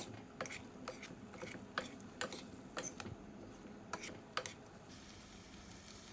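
Cooking utensil tapping and scraping against a pan while stirring a stir-fry, a run of light irregular clicks that stops about four and a half seconds in.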